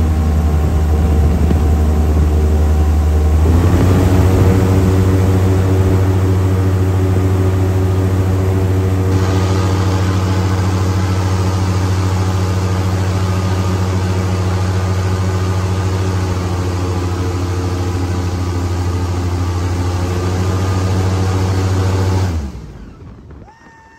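Airboat engine and caged air propeller running loud and steady at speed, stepping up in pitch a few seconds in as it accelerates, with a rush of wind on top. The sound drops away suddenly near the end.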